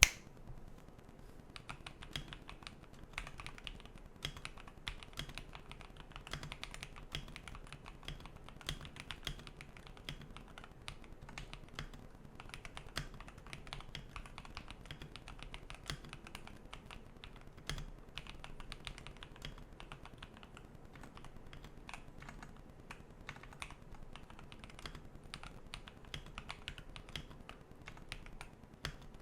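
Typing sound test on an Akko 5075S mechanical keyboard with linear switches, a stock aluminium plate and a tape mod on the back of the PCB: a steady, fast run of keystroke clacks.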